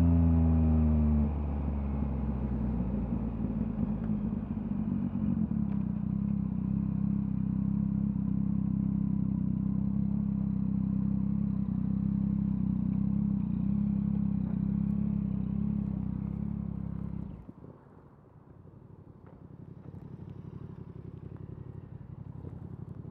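2023 Yamaha MT-09's three-cylinder engine through a LeoVince LV Race exhaust, revs falling as it slows, then idling steadily. About 17 seconds in the engine is switched off and cuts out suddenly, leaving a faint low hum.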